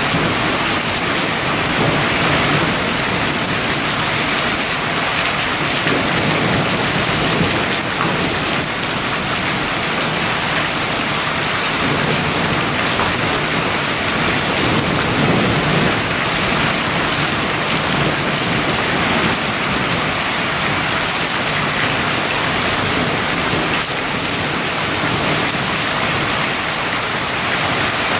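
Heavy thunderstorm rain pouring steadily, an even loud hiss with no letup.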